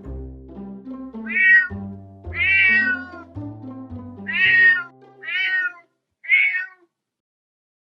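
Domestic cat meowing five times, about a second apart, over background music of low sustained notes that stops shortly before the last meow.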